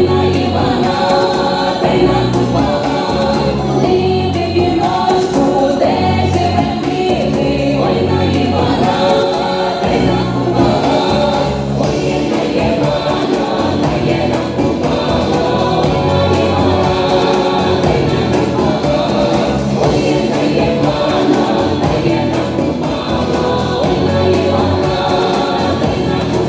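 A choir singing.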